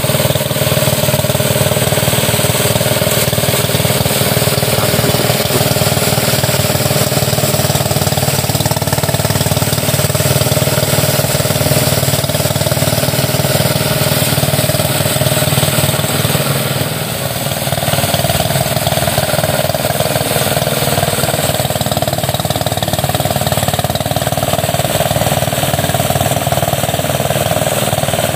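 Engine-driven portable rice thresher running steadily while bundles of rice stalks are fed into its drum, with a short dip in level a little past the middle.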